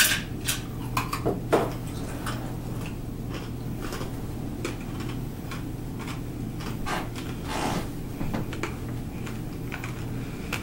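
A few sharp crunches and clinks at the start, ice chewed and rattled in a plastic cup, then scattered knocks and rustling as a person gets up from the table. A steady low hum runs underneath.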